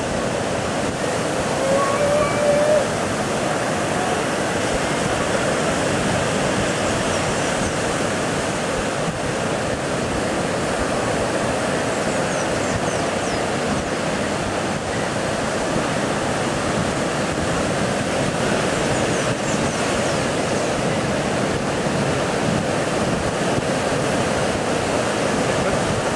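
Ocean surf breaking and washing, a steady rush of noise.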